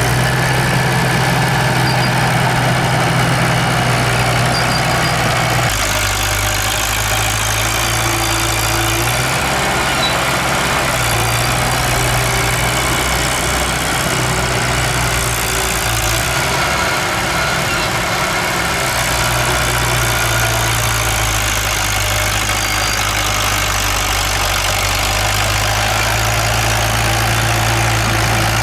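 Diesel engine of heavy earthmoving machinery running, its note shifting up and down every few seconds as the machine works.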